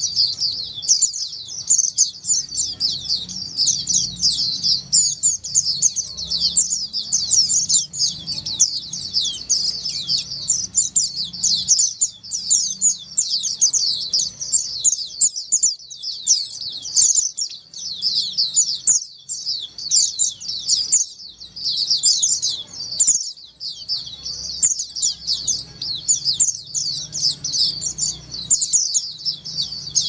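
A large flock of white-eyes (pleci) in an aviary, many birds calling at once in a dense, unbroken chatter of short, high chirps and twitters.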